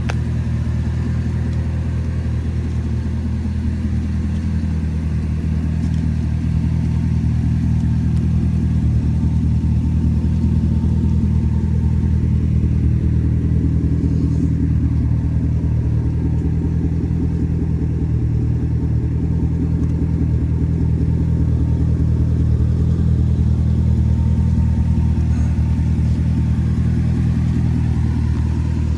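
A car's V8 engine running steadily at an even low pitch, with no revving.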